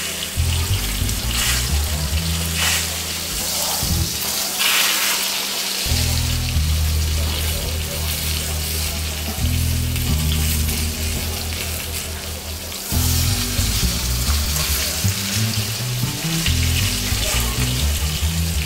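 Porterhouse steak sizzling steadily in hot oil in a cast iron skillet, under an upbeat instrumental music track.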